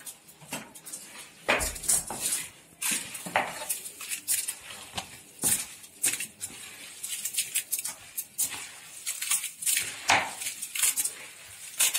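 Hands kneading and squeezing a wet rice-and-onion stuffing in a stainless steel bowl: irregular squelching and scraping, with frequent sharp clinks of the metal bowl.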